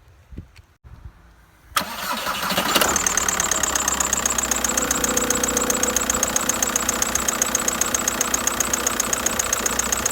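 Volkswagen-group 1.9 TDI diesel engine cranking and catching about two seconds in, then idling with an even rhythmic clatter and a steady high-pitched whistle over it.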